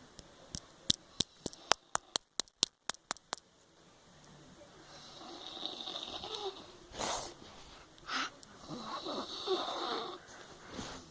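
About a dozen sharp clicks, roughly four a second, over the first three and a half seconds, then a woman snoring in her sleep: slow, noisy breaths, with a couple of short louder bursts.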